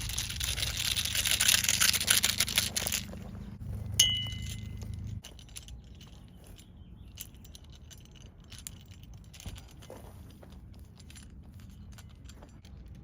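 Rain fly fabric rustling as it is handled for about three seconds, then a single sharp metal clink with a brief ring, like a carabiner knocking, followed by faint small clicks and rattles of gear.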